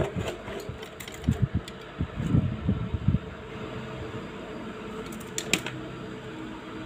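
Handling noise from multimeter test leads and fan wiring being moved inside a plastic fan base: a cluster of low knocks and rustles in the first three seconds and a couple of short clicks later, over a steady low hum.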